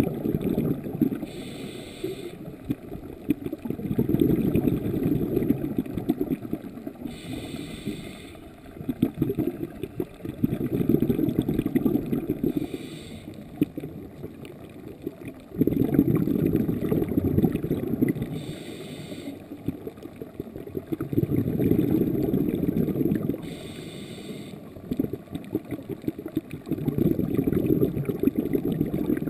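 Scuba diver's regulator breathing, heard underwater. Each breath is a short hiss of inhalation followed by a longer gurgling rush of exhaled bubbles, repeating about every five to six seconds.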